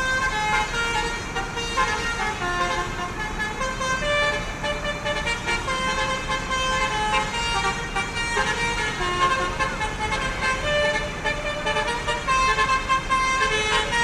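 Multi-tone 'telolet' bus horn playing a continuous tune of stepped, held notes, over the low rumble of the bus.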